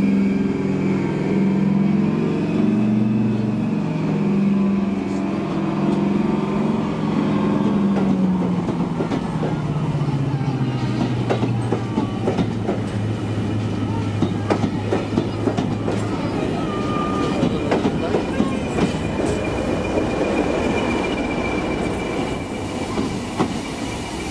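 Class 55 Deltic diesel locomotive pulling away past the listener, its Napier Deltic two-stroke engines giving a deep, many-toned note whose pitch drops about eight seconds in as it moves off. Then passenger coaches roll by with a steady clicking and clattering of wheels over rail joints.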